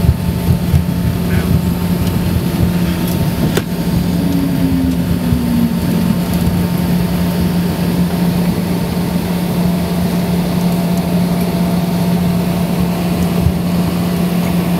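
Jet airliner cabin noise on the runway just after landing: a loud, steady drone with a constant low hum and a rumble underneath.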